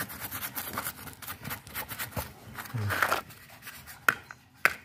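A hand scraping and digging through gravelly sand and pebbles, with stones rubbing and clicking, and a few sharper clicks near the end.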